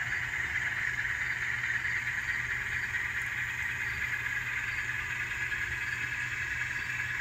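Steady diesel engine sound from the ESU LokSound decoder in an N scale Alco C420 high hood model locomotive, played through its tiny onboard speaker, as the locomotive moves slowly along the yard track.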